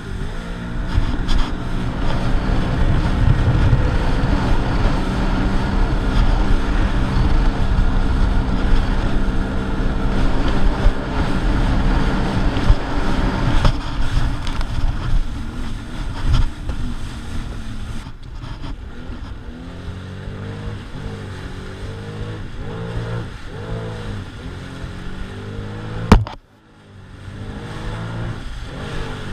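Sea-Doo Spark Trixx jet ski engine running loud and steady for about the first fourteen seconds, then quieter with the revs rising and falling. A sharp knock about 26 seconds in is followed by a brief drop in sound.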